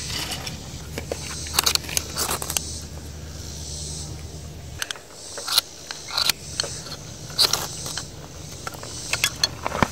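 A steel striker scraped down a fire steel (ferro rod) again and again in short strokes, throwing sparks onto a fluffed-out fire-starter tab, with handling of the tinder between strikes; the strikes come in clusters, a bunch early on and several more in the second half.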